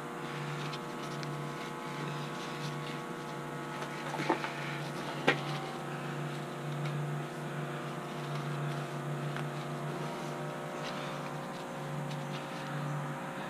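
A steady machine hum, its lowest part pulsing on and off, with two sharp clicks about a second apart near the middle.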